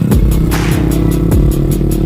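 Background electronic music with a steady beat: evenly spaced hi-hat ticks over a dense bass line, with deep bass notes sliding down in pitch twice.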